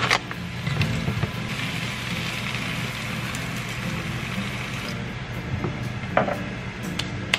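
Kimchi sizzling in a frying pan as a frozen block of brown rice sits in it and a splash of water is poured over, over soft background music. There is a knock right at the start and another about six seconds in as the glass lid goes on.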